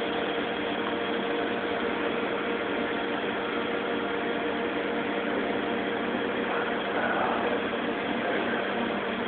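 Steady machinery hum with an even hiss and a few constant tones, the background drone of aquarium pumps and air handling.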